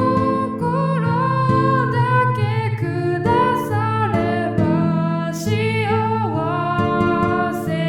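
Music: a slow song with a plucked-string accompaniment and a lead melody line with vibrato.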